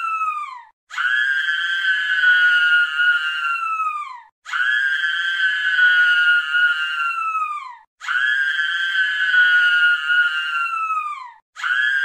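A scream looped as a ringtone. Each long, high scream holds one pitch and then falls away at the end, with a brief break before the next; it repeats about every three and a half seconds.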